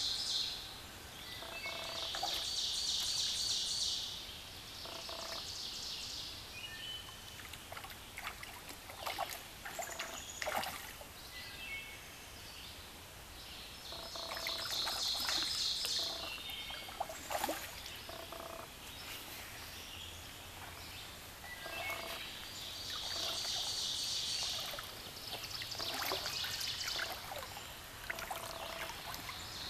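Gentle stream water running under a high, buzzy trill that lasts about two seconds and comes back several times, with a few sharp knocks and splashes in between.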